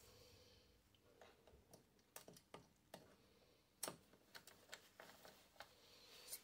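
Faint, irregular clicks and light knocks of hands handling tools and parts, the sharpest one about four seconds in.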